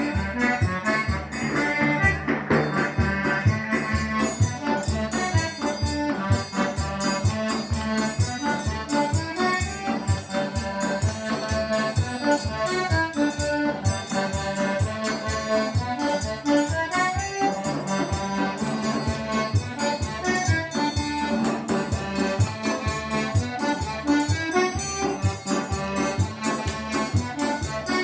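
Traditional Rodriguan dance music led by an accordion, with a steady beat.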